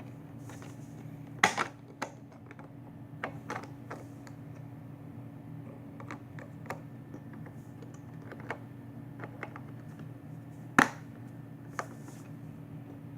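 Monitor casing parts being handled and fitted: scattered light clicks and taps, with two sharper knocks, one about a second and a half in and one near the end.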